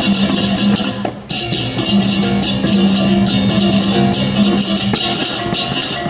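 Balinese baleganjur gamelan playing: rapid, dense clashes of ceng-ceng hand cymbals over kendang drums and a steady low gong tone. The ensemble drops out for a moment about a second in, then comes back at full strength.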